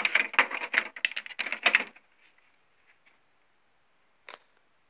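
Rapid, irregular clattering and rustling of cables being handled and plugged in at the back of a desktop computer for about two seconds, then a single sharp click a little over four seconds in.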